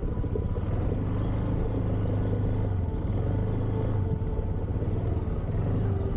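Motorcycle engine running steadily at low speed, a continuous low hum with rapid firing pulses. Its pitch drops slightly near the end.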